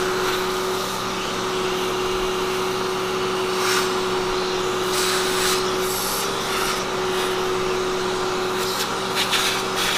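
Shop vacuum running steadily with a constant whine, its hose sucking up cast iron chips, with a few brief rattles as chips are drawn in.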